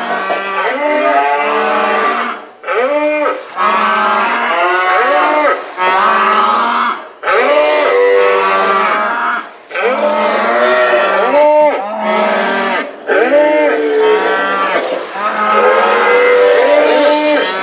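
A model train cattle car's sound unit mooing: recorded cow moos, one after another, with short breaks every couple of seconds.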